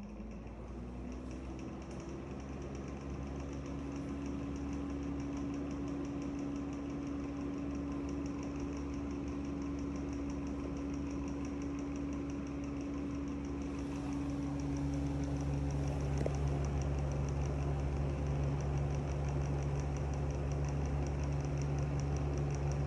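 Deta DEX200 exhaust fan starting up and running with very bad bearings: a steady motor hum that rises in pitch as it spins up, then holds, with a rough, grinding edge. About two-thirds of the way through the hum drops lower in pitch and grows louder.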